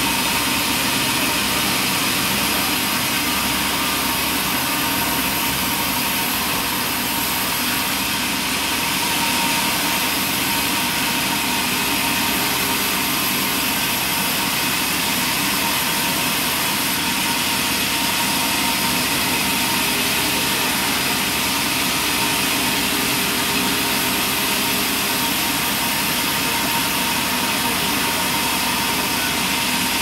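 Large stationary band sawmill running steadily while boards are sawn, a constant mechanical noise with a steady high whine.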